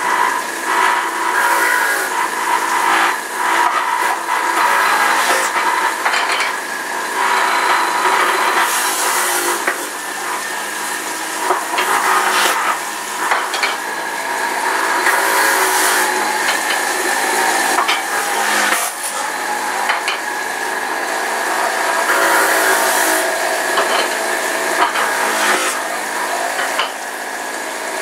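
Kitchen tap water running into a metal sink while greens are rinsed by hand: a steady hiss of running water with splashing that swells and eases as the hands move under the stream.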